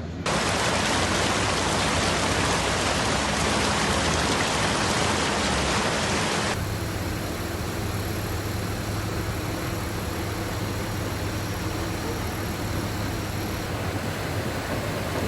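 Loud, steady rush of floodwater and heavy rain, with an abrupt change about six and a half seconds in to a slightly quieter stretch of the same rushing noise.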